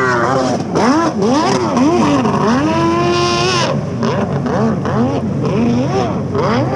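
Kawasaki 1100cc two-stroke triple in a 650SX stand-up jet ski, running hard. Its engine speed rises and falls over and over, about twice a second, and is held at a high pitch for about a second near the middle.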